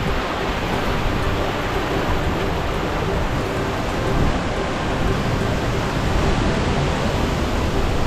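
Gljúfrafoss waterfall and the stream running from it through the gorge: a steady, even rushing of falling water.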